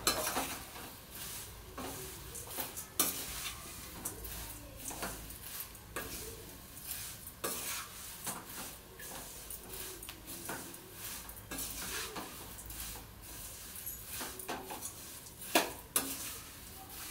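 Flattened rice (aval) being stirred and tossed in a stainless steel pan as it roasts in ghee: dry scraping and rustling with frequent clinks of the spoon against the pan, over sizzling. There is a louder clink near the end.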